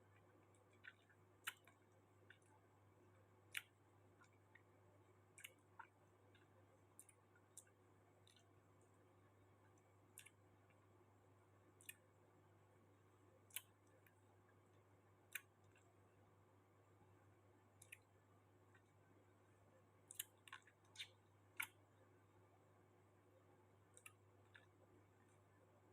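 Faint eating sounds: scattered sharp mouth clicks and smacks at irregular intervals while chewing, over a steady low hum.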